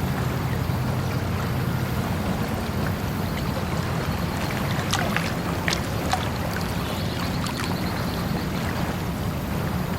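Flowing water running steadily, with a few brief splashes about five to six seconds in.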